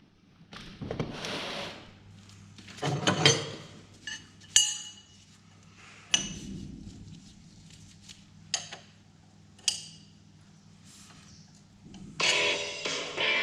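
Tools and metal parts clinking and knocking, with rustling handling sounds in between, as work goes on at an irrigation pump's diesel engine; one clink about four and a half seconds in rings briefly. Guitar music comes in about a second before the end.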